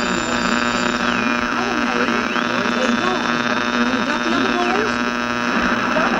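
Old AM radio interference: a steady electrical hum and buzz with a high whistle that slides down in pitch about a second in, rises again, holds, and drops once more near the end.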